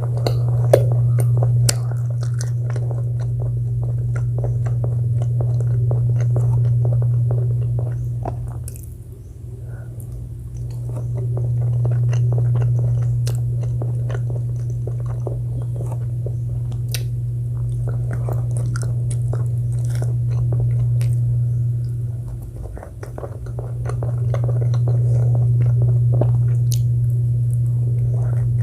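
Close-up chewing and biting of food, with many small crunchy clicks. Under it runs a loud, steady low hum that drops away briefly twice.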